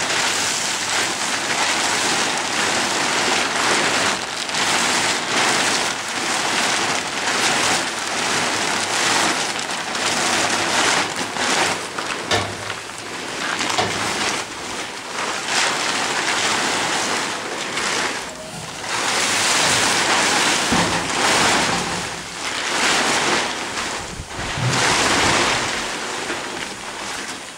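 Plastic tarp crackling and rustling loudly in repeated surges as it is bunched and moved about on a stall floor.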